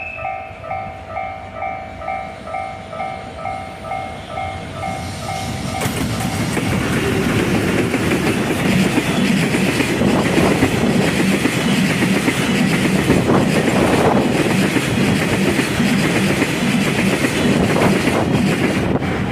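Railway level-crossing warning bell ringing in a steady rhythm, about two strokes a second. About six seconds in, a freight train passes at speed, its wheels clattering over the rail joints, and it drowns out the bell.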